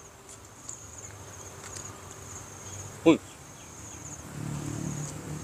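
Insects chirping steadily in high, pulsing trills. About three seconds in, a brief falling vocal sound from the man eating, and low chewing sounds from the eating toward the end.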